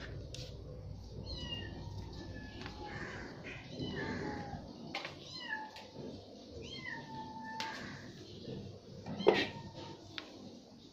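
Kittens mewing over and over in short, high cries. A few light clicks and one sharp knock about nine seconds in.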